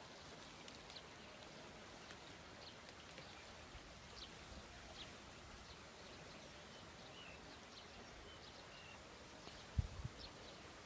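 Near silence of open country, with a few faint, short, high chirps scattered through it, and two brief low thumps near the end.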